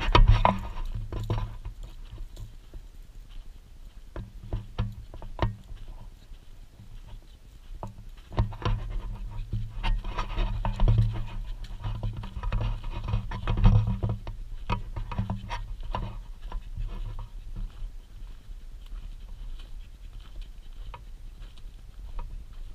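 English mastiff and Pakistani bully dogs moving around a camera set on the ground: scattered scratches and taps from paws and noses on dry earth and against the camera, with panting up close. The taps are busiest in the middle stretch, over a low rumble.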